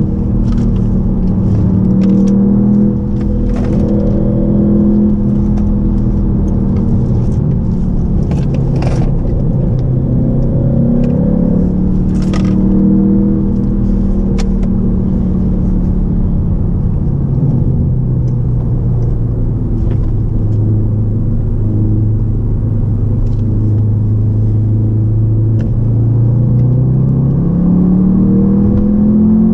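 Audi TTS's 2.0-litre turbocharged four-cylinder engine running under way. Its note holds steady, drops lower about a third of the way in and stays low and even for a long stretch, then climbs again near the end as the car accelerates, with faint ticks over it.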